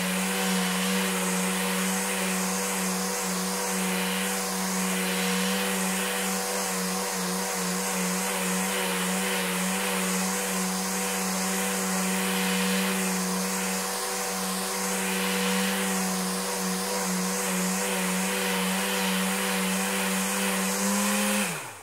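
Electric sander running steadily: a constant motor hum over a hiss. Near the end it is switched off and winds down, its pitch falling as it stops.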